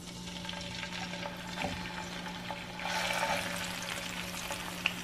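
Minced garlic sizzling in hot oil in a nonstick frying pan while a silicone spatula stirs it. The sizzle grows louder about three seconds in.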